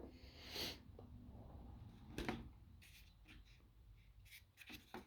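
Faint handling of a torque wrench's carry case: a soft rub, then a sharper click a little over two seconds in and a few light ticks, as the clamp-style clips on its side are worked open.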